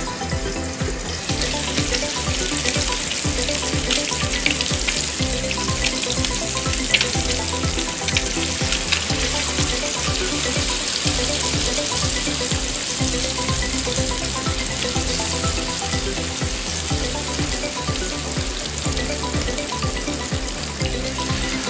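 Tilapia fillets coated in turmeric and chili powder shallow-frying in hot oil in a pan, a steady sizzle with dense crackling that gets louder about a second in.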